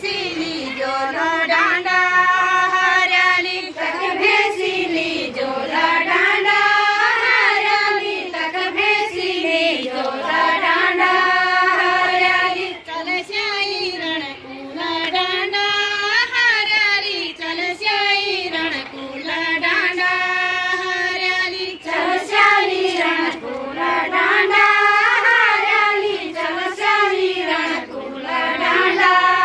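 A group of women singing a Garhwali chanchari folk song together in chorus, a repeated melody in phrases that rise and fall, with short breaks between phrases.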